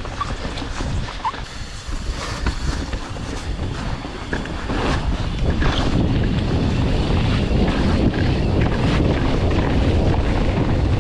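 Wind buffeting a GoPro microphone on a mountain-bike descent, over tyres rolling on loose dirt and scattered knocks and rattles from the bike. The rumble gets louder about five seconds in.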